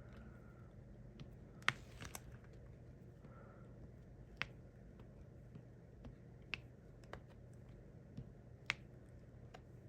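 Diamond painting drill pen tapping resin drills onto the sticky canvas: a handful of sharp, irregularly spaced clicks over a faint steady hum.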